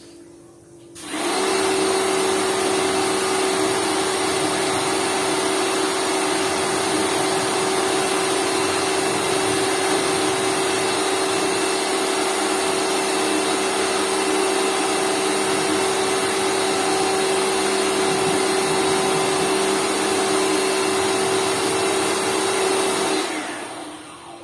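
Lakoni Laguna 70 electric pressure washer running steadily with a steady hum. It starts about a second in and shuts off near the end.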